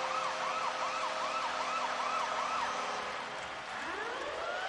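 Arena goal horn sounding together with a rapidly wailing siren effect over a cheering, clapping crowd, celebrating a home-team goal. The steady horn tones stop about three and a half seconds in, and a siren whoop rises toward the end.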